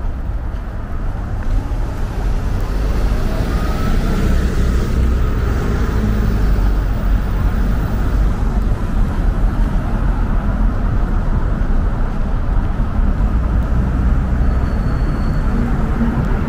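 Road traffic: a city bus and cars driving past, a steady low rumble of engines and tyres, with a faint rising whine a few seconds in.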